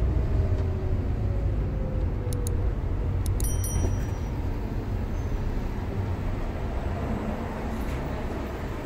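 Daihatsu Gran Max's engine and road noise heard inside the cab as it rolls slowly, the engine note falling over the first couple of seconds as it slows. A few light clicks and a short high beep come around the middle.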